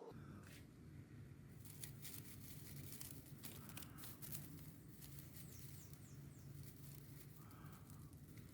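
Faint crackling and rustling of dry tinder (coconut-husk fibre and grass), a scatter of small dry clicks over a low steady background, thickest in the first half.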